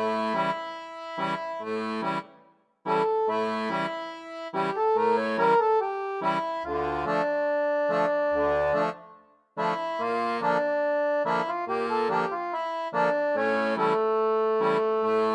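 Background accordion music: a lively tune with bass notes underneath, breaking off briefly about two and a half seconds in and again near ten seconds.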